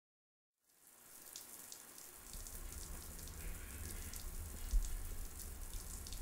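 Faint crackling, pattering noise fades in about a second in, over a low rumble.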